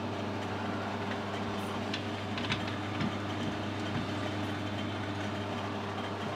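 Steady low electric hum of workshop machinery at rest between cuts, with a few faint clicks of tooling being handled.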